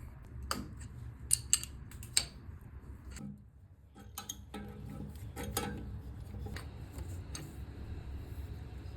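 Irregular sharp clicks and light clinks of small hard objects being handled and knocked together during plumbing installation work, over a low steady hum.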